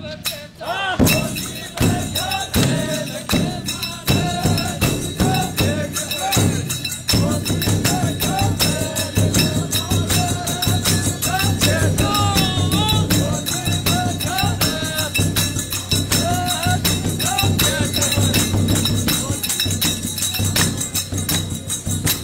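Rajasthani pad folk song: a voice singing a wavering melody over fast, dense hand percussion with jingling cymbals.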